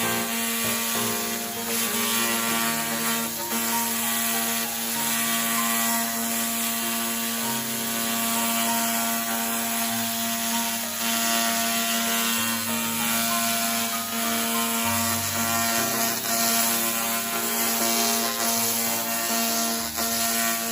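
Handheld fiber laser cleaning head working on a metal surface: a steady, dense hissing crackle as the pulsed beam strips rust and paint.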